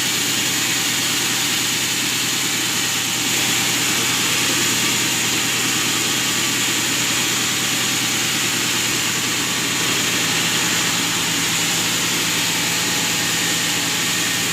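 Sawmill saw machinery running steadily: a motor hum under a loud, high hiss. The hiss brightens and grows a little louder about three seconds in.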